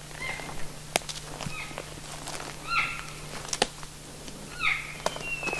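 Cow and calf elk calls blown by a hunter in 'lead cow & calf talk': four short, high mews, the louder ones falling in pitch, then a longer call starting near the end. A couple of sharp clicks in between.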